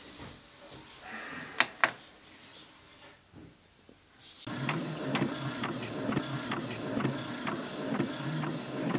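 Epson XP-352 inkjet printer printing a photo: two sharp clicks about one and a half seconds in, then from about halfway the printer's mechanism runs with a steady whir and regular ticking as it feeds the paper and prints.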